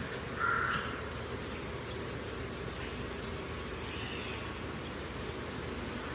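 A steady low buzz with a few short, faint chirps above it.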